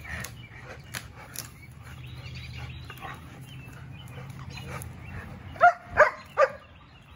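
Two dogs tugging a pine branch: a low steady growl with the branch rustling, then three loud barks in quick succession near the end.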